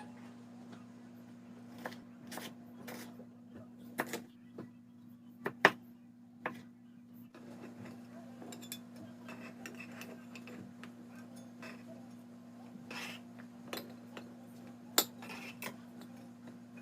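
A kitchen knife cutting vegetables on a cutting board: sharp knocks and taps at irregular intervals, with a steady low hum underneath.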